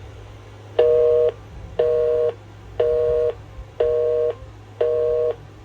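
North American telephone busy signal: two-tone beeps, half a second on and half a second off, five times. It was recorded at the end of a message after the caller hung up and is being played back by the cordless phone's answering machine.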